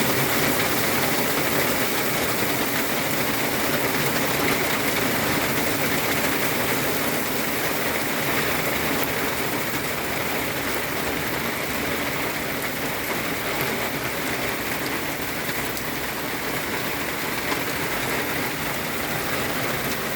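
Heavy rain pouring down, an even, dense hiss of falling drops.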